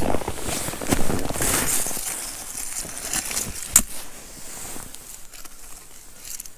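Close handling noise of an ice angler moving about on snow and ice: dense rustling and crunching for about two seconds, then quieter scattered small clicks, with one sharp click near the middle.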